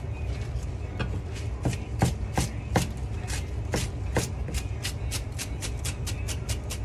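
Chef's knife chopping celery leaves on a plastic cutting board. A few spaced, heavier cuts are followed by a quick, even run of about five cuts a second, over a steady low hum.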